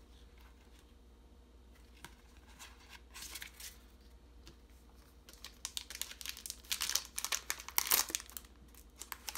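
Foil trading-card booster pack wrapper crinkling and tearing as it is opened. A short crackly patch comes about three seconds in, then a denser run of crackling from about five to eight seconds.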